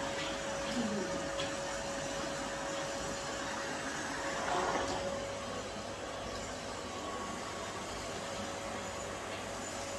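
Canister vacuum cleaner running, a steady rush of suction with a constant motor whine as the floor nozzle is pushed back and forth. The sound swells briefly about halfway through.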